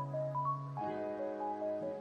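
Background music: a gentle melody of short stepping notes over a held chord, the chord changing about a second in.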